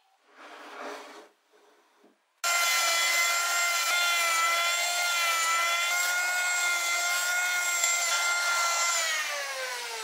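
Handheld electric belt sander running on a block of wood: a loud, steady motor whine that starts abruptly a couple of seconds in and falls in pitch near the end as it winds down. Before it, a few soft rubbing sounds of wood being handled on the bench.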